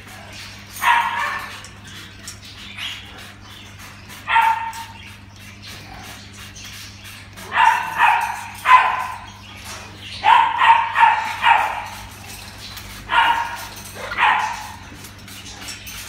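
Male eclectus parrot giving short calls while being misted with a spray bottle, about a dozen in all, several in quick runs of three or four around the middle.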